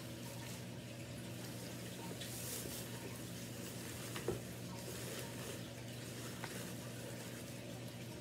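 Plastic Easter grass crinkling and rustling as handfuls are pulled apart and stuffed into plastic baskets, over a steady low hum, with one short knock about four seconds in.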